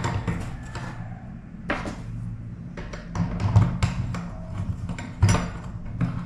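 Scattered clicks and light knocks of plastic bathtub overflow fittings being handled and pressed into place against the tub wall.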